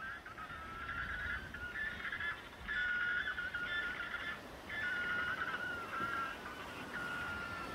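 Colony of erect-crested penguins calling: about five bouts of pulsing, braying calls, several birds overlapping, with short breaks between bouts.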